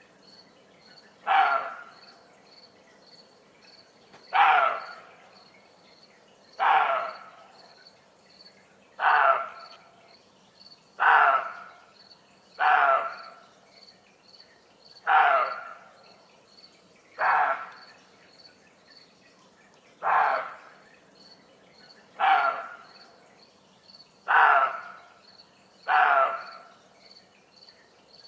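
Roe deer giving harsh alarm barks, about twelve in a row roughly every two seconds, the call of a deer startled or unsettled. Crickets chirp steadily behind the barks.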